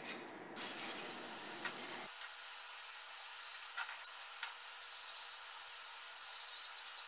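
Small stainless steel wire brush scrubbing the ground-out crack on a boat propeller with acetone, in quick, repeated scratchy strokes, cleaning the metal before it is TIG welded.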